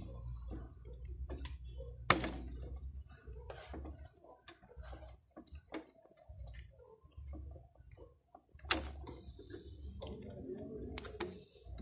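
Plastic clicks and knocks of automotive relays being pulled from and pushed into the sockets of an under-hood relay box, with a low steady hum underneath. The transmission relay is being moved into the ASD relay socket to test a suspected faulty ASD relay. The sharpest clicks come about 2 s in and again near the end.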